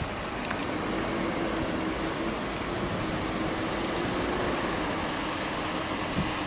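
Steady mechanical hum and hiss with a faint held tone running through it, and one short knock about six seconds in.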